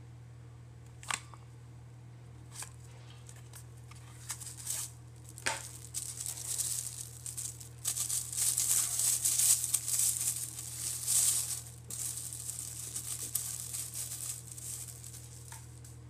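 A couple of sharp clicks as a cardboard retail box is handled, then a thin clear plastic bag crinkling and rustling for about ten seconds as a braided micro-USB cable is unwrapped from it, loudest in the middle.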